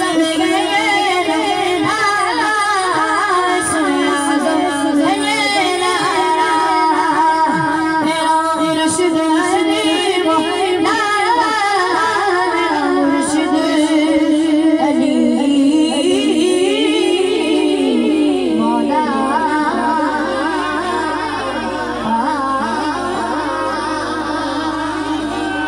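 A boy singing a devotional Urdu manqabat in praise of Ali into a microphone, his high voice amplified over a sound system, with wavering ornamented phrases and long held notes.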